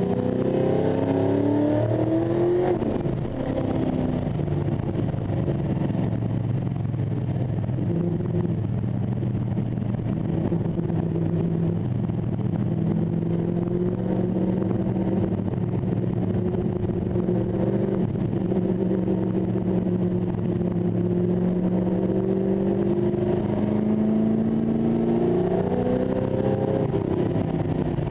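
1973 Ford XA Falcon Coupe race car's engine heard from inside the cabin, under hard acceleration on track. The revs climb, there is a gear change about three seconds in, and then a long, slow climb in revs under load that eases off near the end.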